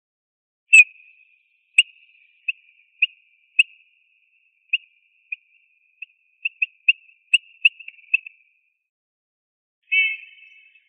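Eurasian bullfinch singing: a string of short piping notes at about the same pitch, irregularly spaced, with a faint thin warble running between them, then a longer, fuller note near the end.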